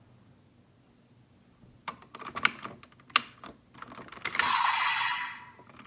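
Sharp plastic clicks and snaps from Bandai Kamen Rider Geats roleplay Raise Buckles being worked by hand, followed about four seconds in by a noisy electronic sound effect about a second long from the toy's speaker.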